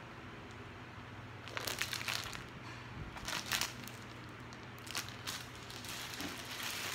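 Clear plastic packaging crinkling as it is handled, in a few short bursts of rustling about one and a half, three and five seconds in.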